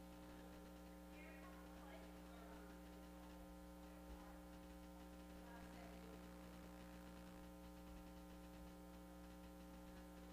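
Near silence with a steady electrical mains hum from the audio feed.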